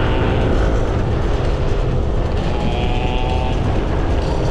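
Yamaha Nmax 155 scooter's single-cylinder engine running steadily under way, buried in heavy wind rumble on the camera's microphone.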